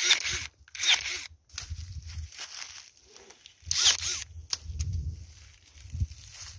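Hand pruning shears cutting pear tree branches: three short cuts, at the start, about a second in, and about four seconds in. A low rumble comes between them.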